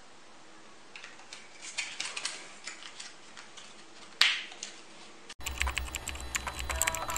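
Clear plastic clamshell tray crackling and clicking as it is handled and pressed shut, then one sudden loud burst of noise about four seconds in. Over a second later a typewriter-style typing sound effect starts: rapid clicks with short repeated tones and a low hum.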